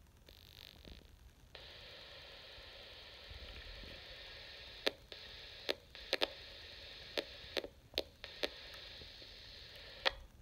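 Steady static hiss from a handheld radio scanner's speaker as it receives FRS channel 14, setting in about a second and a half in, broken later by a run of sharp clicks and brief drop-outs in the hiss.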